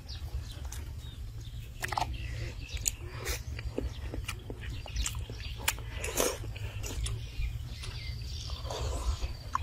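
Close-up eating sounds: a person chewing and biting fish head flesh, with scattered clicks of a spoon against a metal plate, over a steady low rumble.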